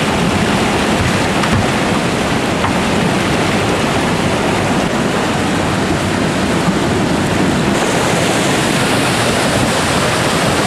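River whitewater pouring over a waterfall and churning through a narrow rock gorge: a steady, loud rushing.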